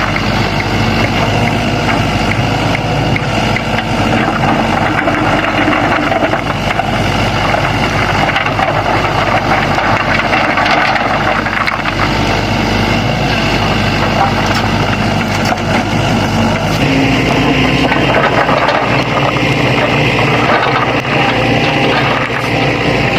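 Sany excavator's diesel engine running steadily as the machine works, with a shift in its note about two-thirds of the way through.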